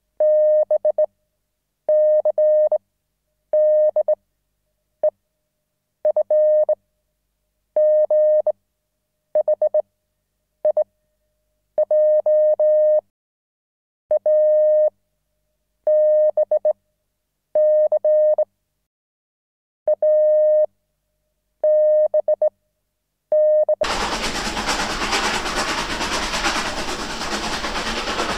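Electronic beep tone switched on and off in pulses of uneven length, some short and some nearly a second long, with irregular gaps. About 24 seconds in, it gives way to a loud, continuous rushing rumble.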